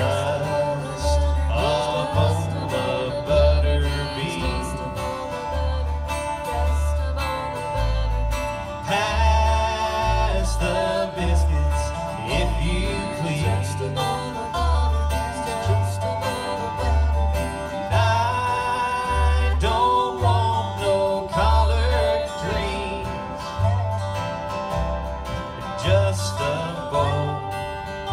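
Live bluegrass band playing: upright bass thumping out alternating notes on the beat under strummed acoustic guitar, with a fiddle and a sliding steel guitar carrying the melody.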